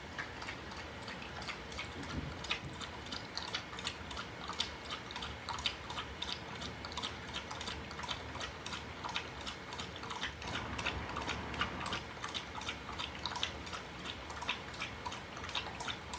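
A dog lapping water from a stainless steel bowl: a steady, rhythmic run of quick wet laps, several a second.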